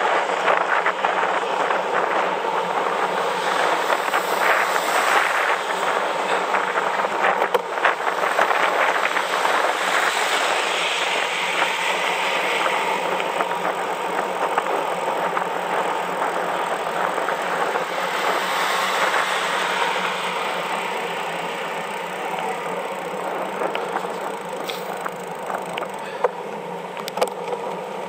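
Wind rushing over a bicycle-mounted camera's microphone, with tyre noise from the road, while riding; it grows somewhat quieter in the last third. Two sharp clicks sound near the end.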